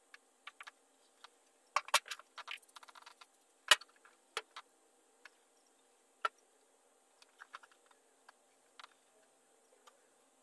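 Scattered light clicks and taps of a small hand tool and fingers working at the bare steel door pillar of a VW Beetle body. There is a quick run of ticks about two seconds in, then a sharper knock just before four seconds in.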